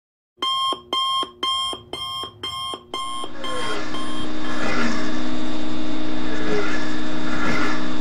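A quick run of electronic alarm beeps, about two and a half a second, that grow quieter and give way after about three seconds to steady rushing outdoor noise with a constant low hum.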